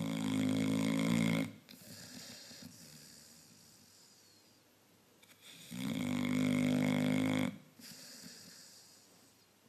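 A sleeping dog snoring: two loud, pitched snores about six seconds apart, each lasting about two seconds and followed by a quieter breath that fades away.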